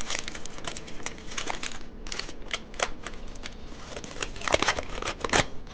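Plastic candy wrapper crinkling and being torn open, with a run of irregular crackles and snaps that grow louder near the end.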